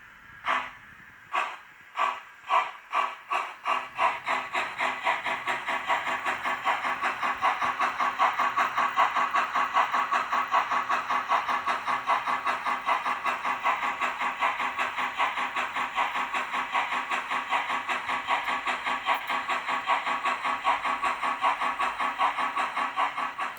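Steam locomotive chuffing: slow, separate exhaust beats at first that quicken over the first few seconds into a steady, fast rhythm of about four or five beats a second, with a hissing edge.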